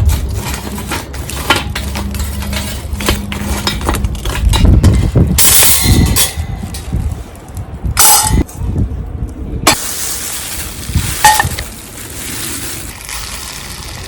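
Hard objects being handled: a series of clinks and clangs, several sharp knocks, a couple of them ringing briefly like metal, over a low steady hum.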